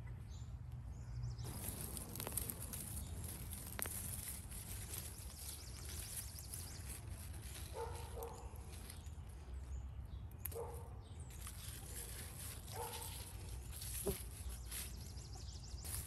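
Dry pea vines and leaves rustling as they are handled and pulled off a wire trellis by hand. A few faint, short animal calls sound in the second half.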